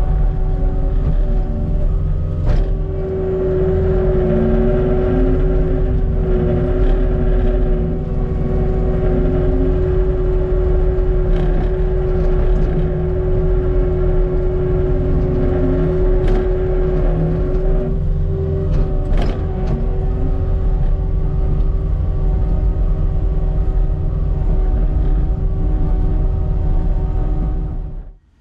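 Cat 289D3 compact track loader's diesel engine and hydraulics running under load as it grades dirt, heard from inside the cab: a steady low drone with a steady whine through much of it and engine tones that waver as the machine works. It cuts off near the end.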